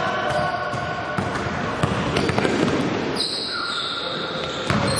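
Basketball play on an indoor court: the ball bouncing and sneakers squeaking on the floor. The squeaks come as short held tones, with a longer, higher one about three seconds in, against voices in the hall.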